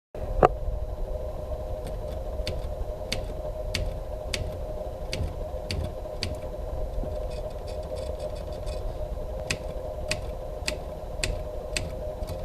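Facit portable manual typewriter typed on slowly: single sharp keystroke clacks at an even pace of a little under two a second, with a pause of about three seconds in the middle.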